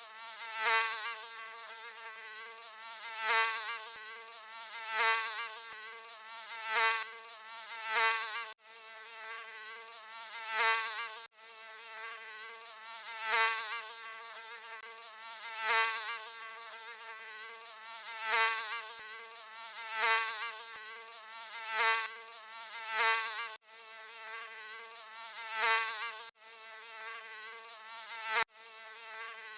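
Mosquito wing whine: a high, wavering pitched buzz that swells loud and fades about every two seconds, as if flying past the ear again and again. Several abrupt brief dropouts break it.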